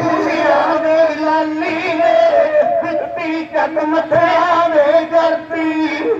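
Men singing a Sikh devotional hymn into microphones, amplified through loudspeakers, over a steady held drone note.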